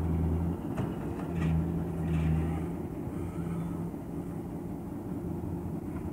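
Diesel engines of a skid-steer loader and a dump truck running. The low drone is strongest in the first three seconds, then settles lower and steadier.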